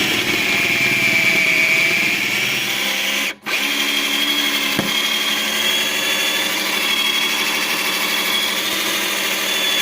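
Electric drill running under load with a larger bit, drilling out the head of a stripped screw. It stops briefly about three and a half seconds in, then runs on steadily with a higher whine.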